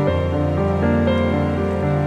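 Soft instrumental background music: sustained, layered notes that change every fraction of a second at an even level.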